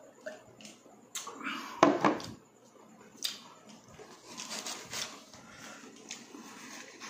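Handling noises at a meal table: a thump about two seconds in, likely the glass mug set down, a few lighter clicks, then paper tissue rustling as hands and mouth are wiped.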